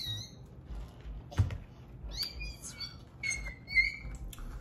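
Puppies whimpering in a string of short, high squeals of wavering pitch, a sign that they want out. A sharp knock comes about a second and a half in, and another near the end.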